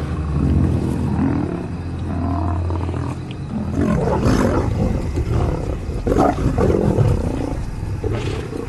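Lions growling over a carcass as they squabble for their share of the meat. A low, continuous rumbling growl is followed by louder, rougher outbursts about four seconds and about six seconds in.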